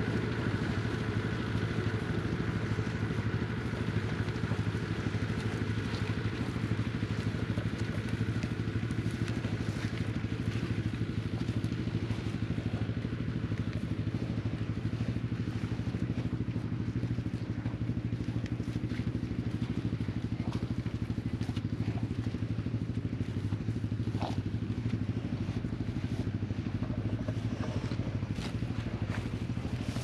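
Farm tractor engine running at a steady speed, with scattered light clicks and crackles.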